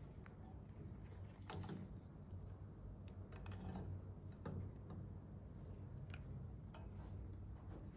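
Light, irregular clicks and taps of small parts being handled, over a steady low hum.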